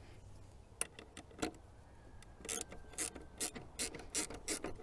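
Ratcheting wrench clicking as a 10 mm nut at the 12-volt battery's terminals is loosened: a few single clicks at first, then a steady run of about four clicks a second from about halfway in.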